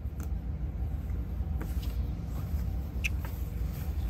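A low, steady background rumble with a few faint, light clicks, like small handling sounds at a work table.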